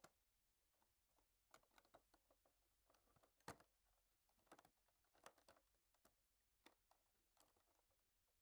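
Faint, scattered small clicks and knocks of a Daikin heat pump indoor fan motor's outer cover being handled and its clips being seated, with the loudest click about three and a half seconds in.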